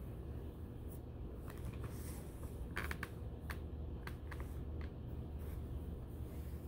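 Bed sheets and a pillow rustling as they are lifted and tucked by hand, with a cluster of short crisp rustles in the middle, over a steady low room hum.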